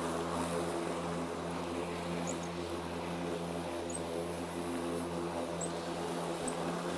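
Ryobi 20-inch 40-volt brushless cordless push lawn mower running steadily, its motor and spinning blade giving an even hum.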